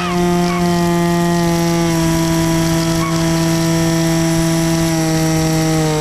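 Multiplex Easystar 2 RC plane's electric motor and pusher propeller running at a steady high whine, heard from on board the plane; the pitch sags slightly near the end.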